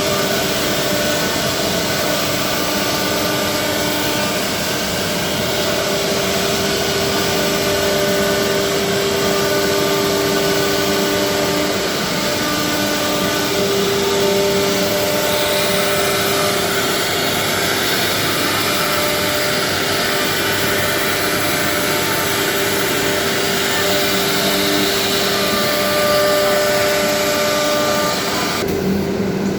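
Four-head industrial CNC wood router running and machining. A steady whine, with several pitches that drop in and out, sits over a continuous rushing noise, and the sound changes abruptly about a second before the end.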